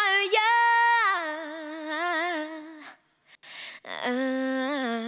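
A young girl singing solo into a microphone with no backing music: a held note that breaks into wavering runs, a pause of about a second, then a new phrase from about four seconds in.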